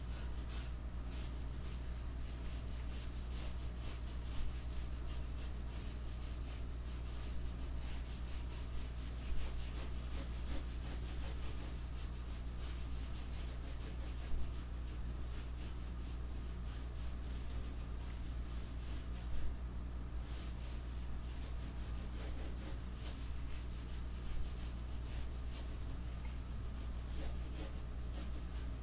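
Pencil scratching and rubbing on paper in light sketching strokes, with a few slightly louder strokes here and there, over a steady low hum.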